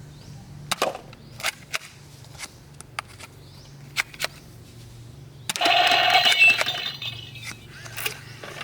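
Plastic toy gun being handled and worked: a string of sharp separate clicks, then a louder rattling, clattering burst lasting about a second and a half, after which the clicks resume.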